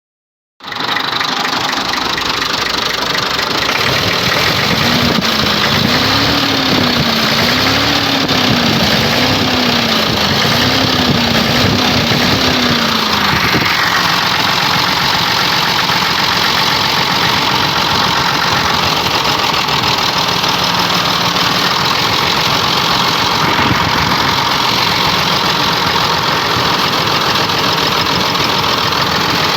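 Massey Ferguson 260 tractor's diesel engine running with a knock, its speed rising and falling about once a second for a while before settling. The engine is misfiring, which the mechanic puts down to a blocked injector nozzle.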